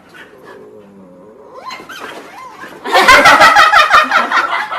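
An animal's loud, rapidly pulsing call, starting about three seconds in after quieter sounds.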